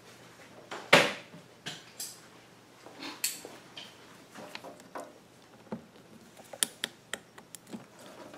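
Small clamps and hose being handled and clasped onto rubber fuel hoses: scattered light clicks and taps, the sharpest about a second in and a quick run of clicks near the end.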